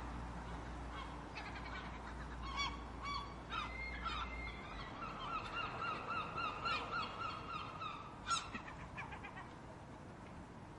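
Several gulls calling over one another with harsh, squealing calls. One gives a fast run of short repeated notes, about three a second, from about five to eight seconds in, followed by a single loud call.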